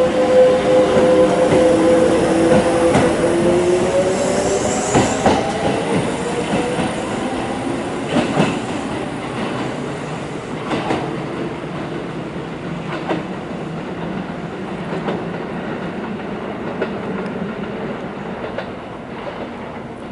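Kintetsu electric train running: a motor whine rises in pitch over the first few seconds, then the wheels clack over rail joints a few times while the sound slowly fades.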